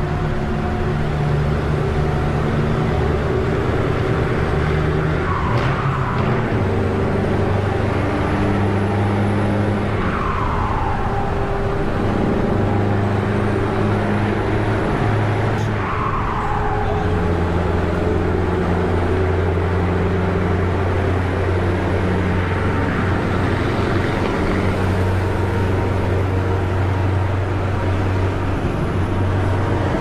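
Scania 164L 580's 16-litre V8 diesel running through an open exhaust pipe as the truck drives along. The deep engine note holds steady, shifting in pitch every few seconds, inside a road tunnel.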